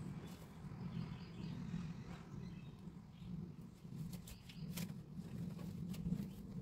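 Quiet outdoor ambience: a steady low rumble with a faint hiss, broken by a few light clicks about five and six seconds in.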